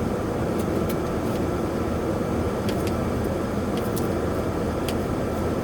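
Steady low mechanical rumble with a few faint light clicks scattered through it.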